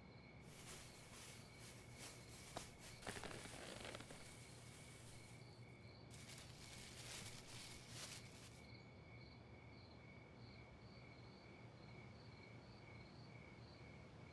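Near silence: faint insects chirping in a steady, regular pulse, with soft rustling of a black plastic garbage bag as a rubber mask is pulled out of it during the first nine seconds or so.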